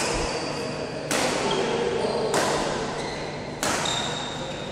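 Badminton rally: rackets striking the shuttlecock four times, about one hit every second and a quarter, each hit ringing on in the hall's echo. Shoes squeak on the court mat between hits.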